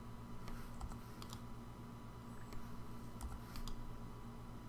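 A few faint, scattered clicks from a computer's mouse and keys as a block of code is pasted in, over a steady low hum.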